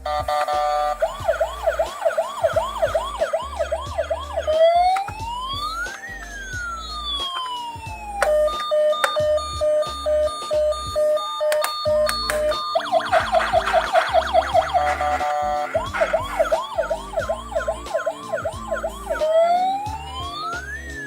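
Electronic ambulance siren cycling through its patterns: a fast repeating yelp, a slow wail that rises and falls, a steady two-tone hi-lo in the middle, then a faster yelp and another wail near the end. Background music with a bass line runs underneath.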